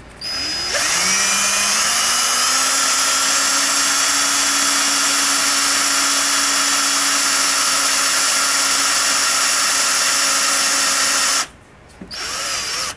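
Power drill with a 1/16-inch bit boring a pilot hole into a fiber-filled plastic rifle buttstock. After a short blip the drill runs steadily, its pitch rising as it spins up, then stops abruptly near the end, followed by one short burst.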